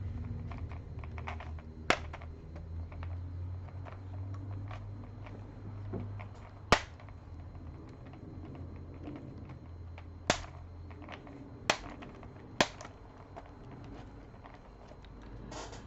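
Laptop plastic case clips snapping loose one by one as the case is pried apart, five sharp snaps spread out over a low hum.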